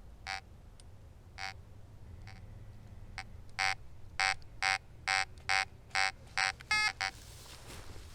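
Fischer F22 metal detector beeping as it sweeps over a screw pushed into a log's bark, signalling a metal target: a few faint beeps, then a run of about eight louder beeps at roughly two a second in the second half, one of them a higher, wavering tone.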